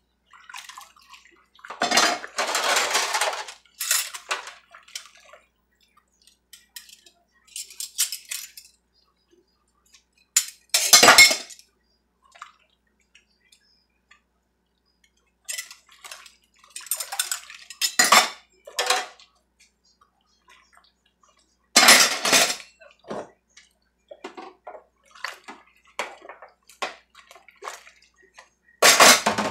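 Dishes and metal cutlery being hand-washed in a stainless steel sink: irregular bursts of clattering and clinking with water splashing, separated by quiet pauses.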